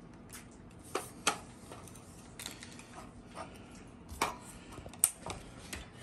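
Light metal clicks and knocks of an AR-10 upper receiver being fitted and seated onto its lower receiver: several separate clicks, the sharpest about five seconds in.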